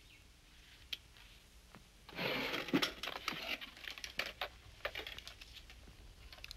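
Rustling and handling noise: a burst of rustling about two seconds in, then a run of sharp clicks and small knocks as objects are moved about on a desk.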